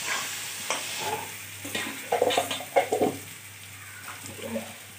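Spiced potatoes and onion sizzling in a metal kadai while a metal spatula scrapes and knocks against the pan, stir-frying the masala down (kosha). A run of sharp clinks and scrapes comes about two to three seconds in, over a soft sizzle.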